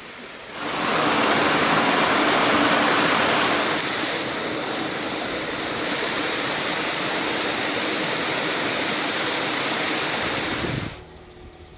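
Waterfall rushing: a loud, steady wash of falling water that starts about half a second in, eases slightly a few seconds later, and cuts off suddenly near the end.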